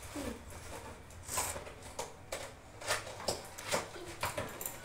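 Cardboard packaging being handled and opened by hand: scattered soft rustles and light knocks, several short ones spread through the few seconds.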